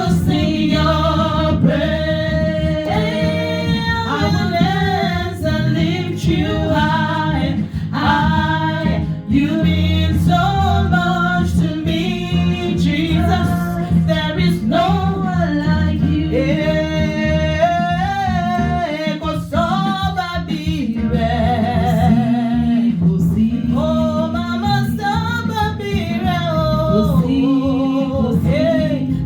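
Gospel worship music: a voice singing a flowing praise melody over a steady instrumental backing.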